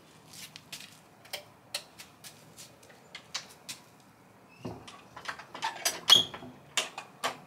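Scattered light clicks and knocks as things are stowed in a garden shed and its wooden door is closed, then a quicker run of louder clicks and rattles from about four and a half seconds in as the door is fastened.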